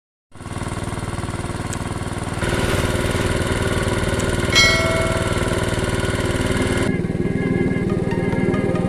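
Stationary diesel engine driving a water pump, running steadily and picking up a little in level about two and a half seconds in. A brief metallic ring sounds about four and a half seconds in.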